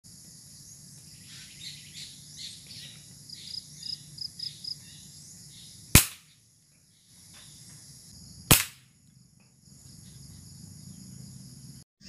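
A small bird chirps in a quick run of short high notes, then an uklik air rifle fires twice: two sharp cracks about two and a half seconds apart.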